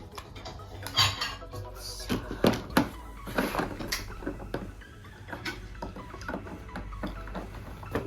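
Toy train set pieces clattering and knocking as they are handled and fitted together, with a few sharper knocks about a second in and around two and a half to three seconds in. Background music plays underneath.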